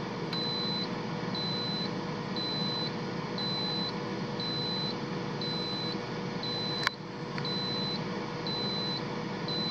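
Instant Pot air fryer lid beeping about once a second, each beep about half a second long, signalling the end of the air-fry cycle. Under the beeps its fan whirs steadily, carrying on in cool mode. One sharp click about seven seconds in.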